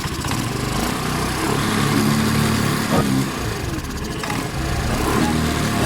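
Suzuki VR125 motorcycle engine running, its revs rising and falling a few times near the middle. It runs on fuel fed directly to the carburettor, bypassing the vacuum fuel tap that is suspected of causing the starting problem.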